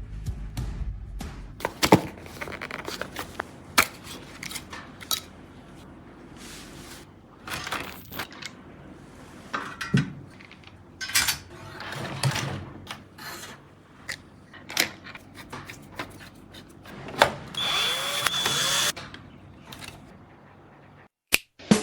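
Computer parts being handled and fitted: scattered clicks, knocks and light rattles, with a small electric screwdriver running for about a second and a half near the end.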